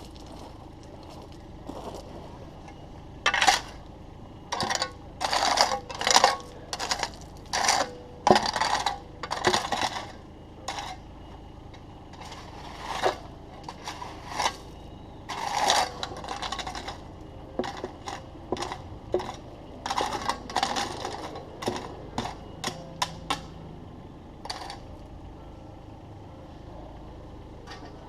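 Loose stone crunching and clinking in irregular scrapes and sharp knocks, bunched into bursts with short pauses between, over a low steady background hum.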